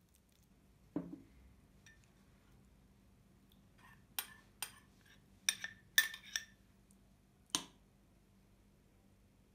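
A metal spoon clinking sharply against a small glass bowl while scraping and tapping tomato paste out of it: a quick run of clinks in the middle, loudest about six seconds in, and a last clink about a second later. Earlier there is one dull knock.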